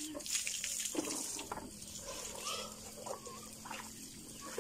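Water from a garden hose spraying and splashing over a person bathing, a steady hiss with scattered splashes, with a chicken clucking briefly a couple of times in the middle.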